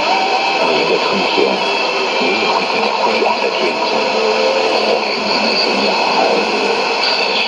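Shortwave AM broadcast on 15560 kHz heard through a Sony ICF-2001D receiver's speaker: steady static and hiss with faint programme audio underneath.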